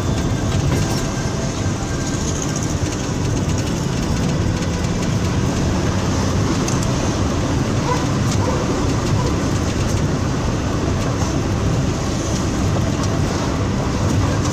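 Steady running noise of a moving vehicle heard from inside it: an even low rumble with no breaks.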